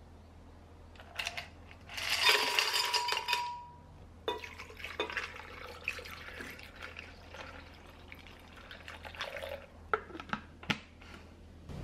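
Ice cubes tipped into a glass blender jar with a loud clatter, then orange juice poured over the ice with scattered clinks and a light splashing. Near the end the plastic blender lid is pressed on with a few sharp clicks.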